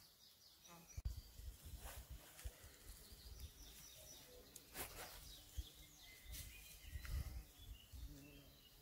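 Faint outdoor ambience: distant birds chirping now and then, with a few soft low thumps.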